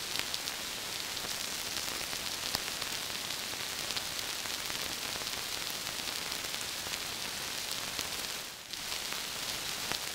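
Rain-like texture played on an Arturia ARP 2600 V software synth, made from two cross-modulated oscillators with oscillator sync, through a high-pass filter and without the noise generator. It is a steady hiss of patter with scattered sharper drop-like clicks, and it dips briefly about eight and a half seconds in.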